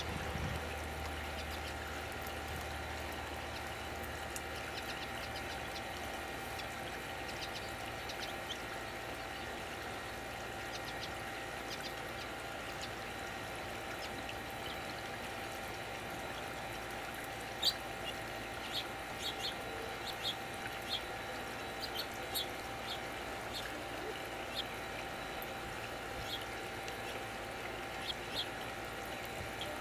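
A steady rushing hiss. From a little past halfway, a string of short, sharp bird chip notes comes in, several a second in loose runs.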